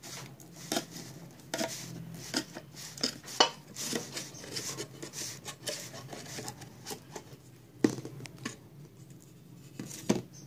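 Lid of a metal paint tin being pried open with a thin metal tool worked around the rim: irregular sharp metallic clicks, knocks and scrapes, with a few louder knocks as the lid works loose.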